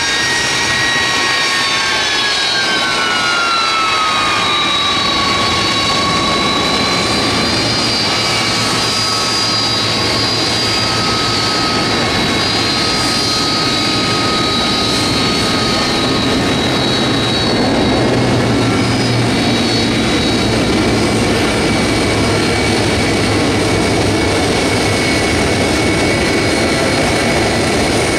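A McDonnell Douglas KC-10 Extender's three General Electric CF6 turbofans run at taxi power as the tanker rolls past close by. There is a steady rushing roar with a high whine on top; the whine falls in pitch over the first few seconds, then holds steady.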